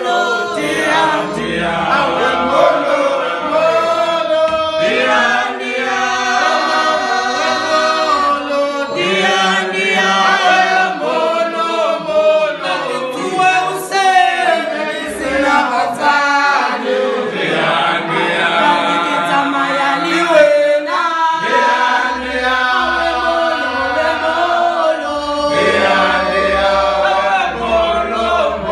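A group of men singing and chanting together without instruments, several voices overlapping.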